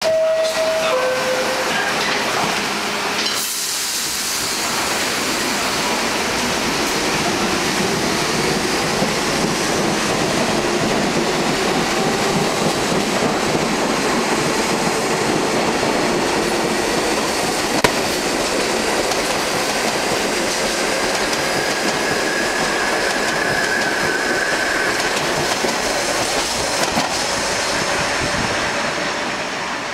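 R44 New York City subway train pulling out of the station and accelerating past, with steady wheel and rail noise and a faint whine from the traction motors rising in pitch. A short two-note tone sounds at the very start, and a high wheel squeal is held for a few seconds about three-quarters of the way through.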